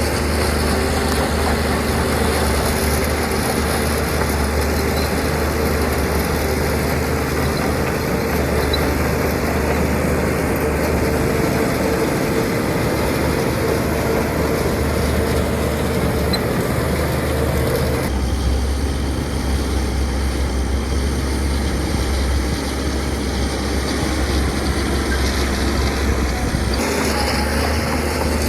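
Heavy diesel construction machinery running steadily. The sound changes abruptly about two-thirds of the way through and changes back near the end.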